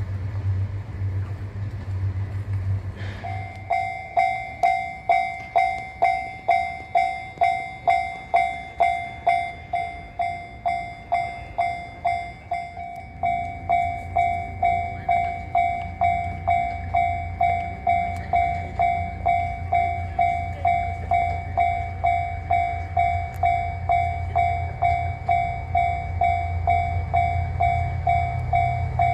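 Railway level-crossing warning bell starts about three seconds in and rings steadily, about twice a second. Under it runs the low rumble of a train, which grows louder in the second half.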